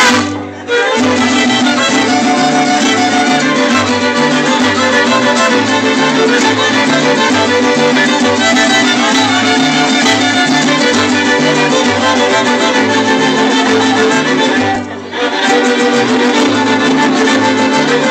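Live mariachi band playing, violins leading over a bass line that steps back and forth between two low notes. The music breaks off briefly twice: just after the start and about fifteen seconds in.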